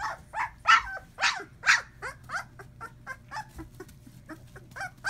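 Litter of two-week-old puppies squealing and yipping over and over: a few loud cries in the first two seconds, then a quick run of shorter squeaks, about three or four a second.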